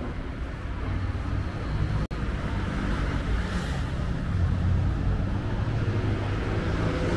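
City street traffic: a motor vehicle's engine runs close by over road noise, growing a little louder from about halfway through. The sound drops out briefly about two seconds in.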